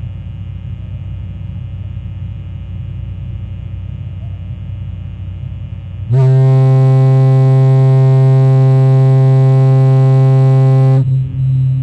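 Fog horn sounding one long, steady, low-pitched blast of about five seconds, beginning about six seconds in after a low background rumble. The blast cuts off abruptly and its echo dies away.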